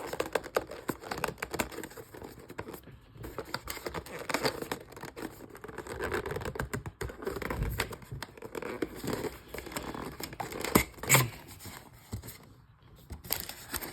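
Hands tearing and crinkling the wrapping and tape on a sealed box of trading cards, a run of crackly rips and rustles.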